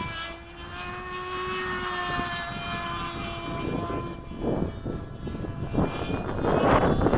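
Mini RC plane's Blue Wonder 3000kv brushless electric motor and 4.5x4.5 propeller whining as it flies, the pitch drifting slightly and fading about three seconds in. Gusts of wind then buffet the microphone, louder toward the end.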